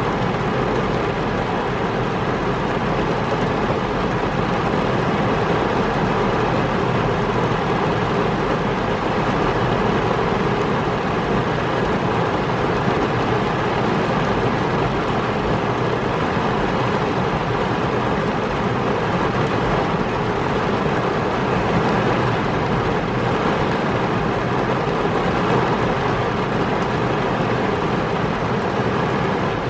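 Heavy rain pouring onto a car's roof and windshield, heard from inside the car as a steady, even rush of rain.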